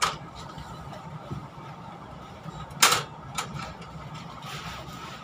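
Steady low hum inside a stationary passenger train carriage, with a few sharp knocks. The loudest knock comes just before three seconds in and a smaller one follows about half a second later.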